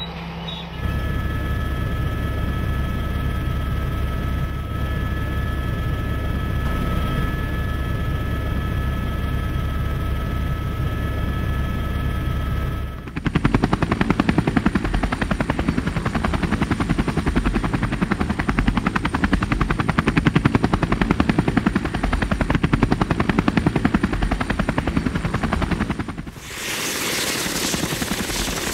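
Helicopter running. First comes a steady engine rumble with a high turbine whine. After a sudden cut about halfway through, its rotor blades chop rapidly, and near the end this gives way to a steady hissing noise.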